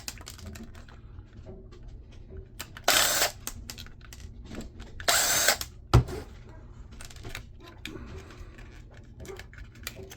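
Cordless drill-driver running in two short bursts, each about half a second long, backing screws out of a jump-starter pack's cigarette-lighter socket. About a second after the second burst comes one sharp knock, with small clicks of parts being handled in between.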